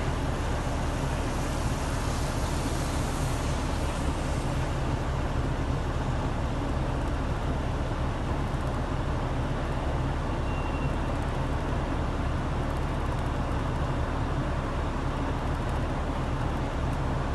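Steady low rumble of road traffic, even in level throughout, with a brief faint high tone about ten seconds in.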